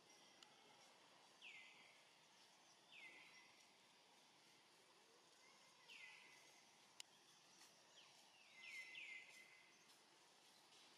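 Faint outdoor ambience with short, high calls that each sweep down in pitch, heard about six times at uneven intervals, two close together near the end. A single sharp click about seven seconds in.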